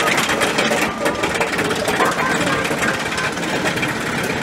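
Mack bobsled coaster train rolling along its elevated steel track with a steady, rapid clatter.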